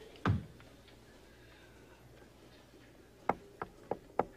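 A dull thump, then near the end four quick sharp knocks, about three a second.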